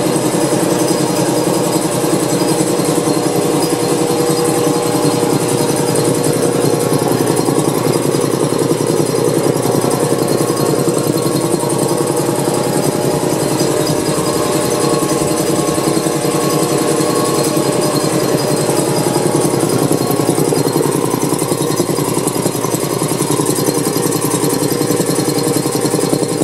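Old cast-iron air compressor pump, belt-driven by an electric motor, running steadily with a fast, even beat as it pumps air into the tank on its first test run.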